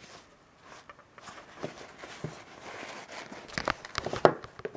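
Nylon drawstring pouch of a GoPro Chesty chest harness rustling as it is handled and lifted, with a quick run of sharp clicks and knocks near the end, the loudest of them just before the end.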